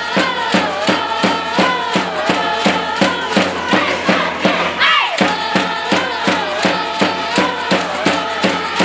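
Spectators' cheering section singing a chant in unison, many voices together over a steady, rapid beat of about four to five strokes a second; the chant phrase starts over about halfway through.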